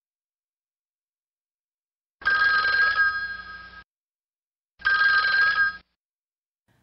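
Telephone ringing twice for an incoming call: two rings of a steady two-tone electronic ring, the first about two seconds in and the second, shorter one about five seconds in.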